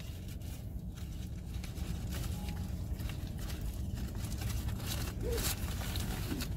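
Aluminium foil wrapper crinkling and rustling now and then as a chicken biscuit is unwrapped by hand, over a steady low hum.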